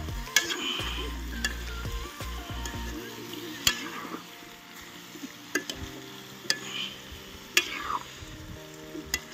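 Pork frying in a pot over a wood fire: a steady sizzle while it is stirred, with sharp clicks of the spoon striking the pot about six times. A low hum runs under it and stops about three seconds in.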